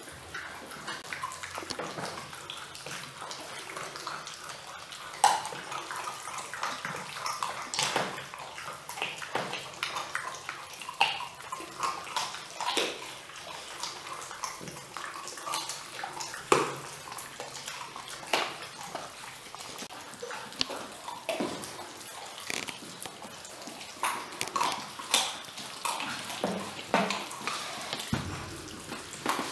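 Weimaraner puppies chewing and crunching chicken wings: an irregular run of small crunches and clicks, with a few sharper cracks about five and sixteen seconds in.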